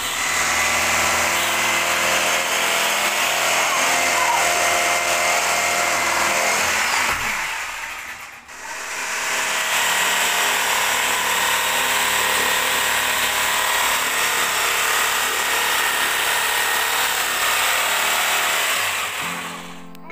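Electric jigsaw cutting through a kitchen countertop, running steadily. It dies away for a moment about eight seconds in, starts again, and fades out near the end.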